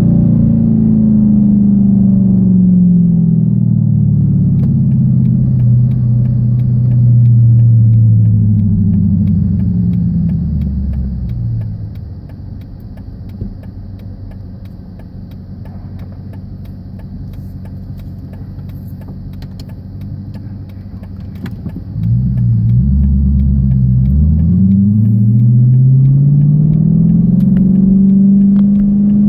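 2014 Dodge Challenger R/T's Hemi V8 through straight pipes (catalytic converters only, no muffler or resonator), heard from inside the cabin. The engine note falls as the car slows, then idles quieter for about ten seconds, then jumps in level and rises steadily as the car pulls away and accelerates.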